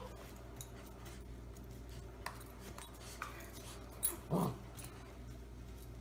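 Bernese mountain dog puppy giving one short bark that falls in pitch, about four seconds in, over a steady low hum with a few faint clicks.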